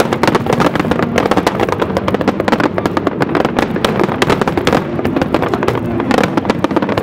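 Fireworks going off in rapid succession: a dense, unbroken crackle of many small bangs.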